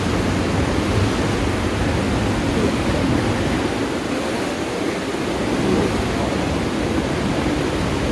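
Steady rushing of High Force waterfall, where the River Tees drops 21 metres, heard as a continuous even noise of falling water.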